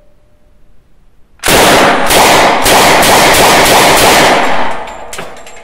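Thompson M1A1 submachine gun in .45 ACP firing one long full-automatic burst of about three seconds, starting about a second and a half in, followed by a single sharp click near the end.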